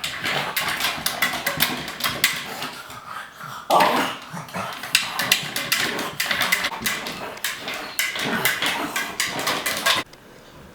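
Pug making weird noises as it eats from a slow-feeder food bowl, amid a run of quick sharp clicks. The sound breaks off suddenly near the end.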